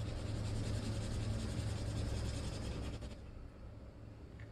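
Red felt-tip pen scribbling on paper in rapid back-and-forth strokes, colouring in a patch; the scratching stops about three seconds in.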